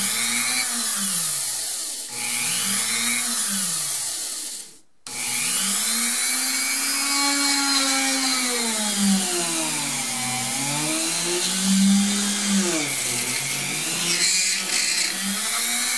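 Small bench drill press motor running while a bit bores lengthwise into a cured polymer clay bead pushed up into it, deepening one end's hole so it meets the other. The motor's pitch rises and falls throughout, and the sound drops out briefly about five seconds in.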